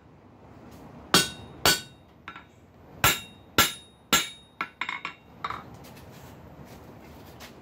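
Ball-peen hammer striking red-hot flat steel bar against the anvil's edge, half-face blows offsetting a square on the bar's end, each blow with a short metallic ring. Five heavy blows, about half a second apart, in two groups with a lighter one between them, then a quick run of lighter taps about five seconds in.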